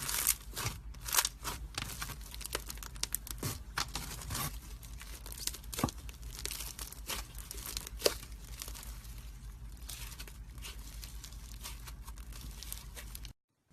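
Slime being squeezed and stretched by hand, giving a dense, irregular run of crackling and popping clicks over a faint low hum. It cuts off suddenly near the end.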